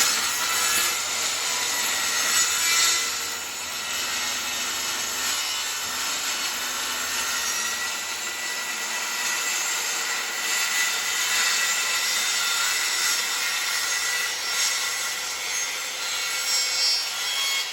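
Circular saw cutting through wood, the blade running steadily under load, with a faint high whine over the cutting noise.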